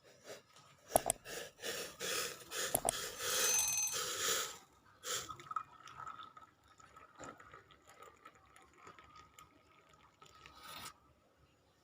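Kitchen utensils and containers being handled: a few sharp knocks and clinks, with a rushing, scraping noise for about a second and a half in the middle, then faint scattered clicks.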